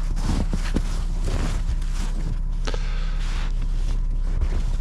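Heavy, wet snow being scooped and shoved by a gloved hand off a Jeep's windshield and wipers, in irregular swishing, crunching strokes. The vehicle's engine keeps up a steady low hum underneath.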